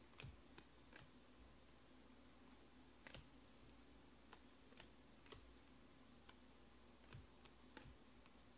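Faint, irregular clicks of 2020 Panini Select baseball cards being slid off a stack and flicked from hand to hand, about a dozen of them, over a low steady hum.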